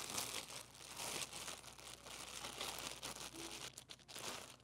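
Clear plastic packing bag crinkling and rustling as it is pulled off a trombone's brass bell section by hand, tapering off near the end.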